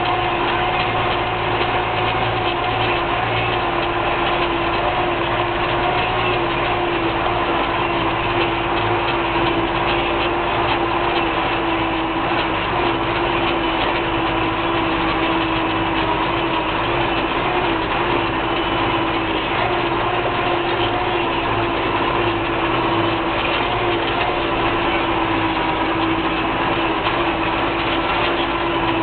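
Case IH 956 XL tractor's six-cylinder diesel engine running at a steady speed as the tractor drives along, heard from the driver's seat.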